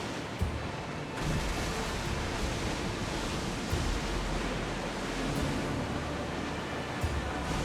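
Sea water and wind: a steady rushing noise of waves with a low rumble underneath.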